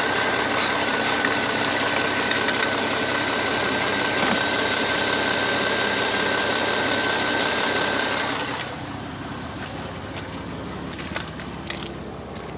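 Car engine idling with its air intake removed and the throttle body open, while water is misted into it to clear carbon deposits; a steady high whistle sits over the engine noise. About eight and a half seconds in, the sound drops and turns quieter and more distant.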